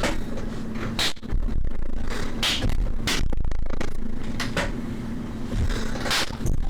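Electronic music: a deep, steady bass bed with a held low tone, and sparse noisy percussive hits every second or two.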